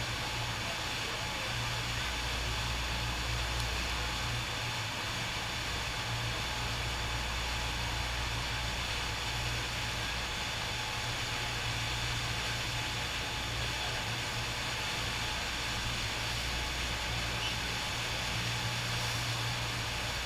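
Steady rushing roar of water pumped up the slope of a FlowRider sheet-wave surf machine, with a constant low hum underneath.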